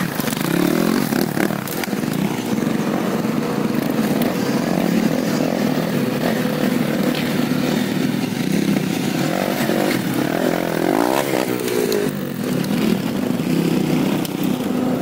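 Off-road motorcycle engines revving and labouring on a rocky hill climb. The revs are held low and blipped up and down, with one rise and fall in pitch about eleven seconds in.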